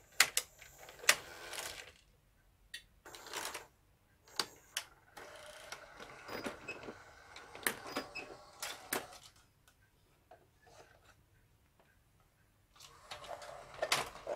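Hitachi VT-S1000 S-VHS VCR's tape-transport mechanism moving: a string of sharp clicks and short motor whirs, with a steadier run of mechanical noise in the middle and a quiet pause before a last burst near the end.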